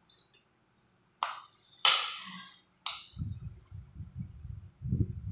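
A metal fork and spoon clink and scrape against a bowl three times, then close-up wet chewing of bakso meatballs in sauce, in quick irregular strokes.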